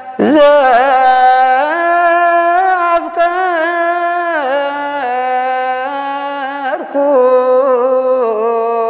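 A man singing Ethiopian Orthodox Ge'ez liturgical chant solo and unaccompanied, drawing a verse out in long held notes that bend and glide up and down in ornaments. There is a short break for breath about two seconds before the end.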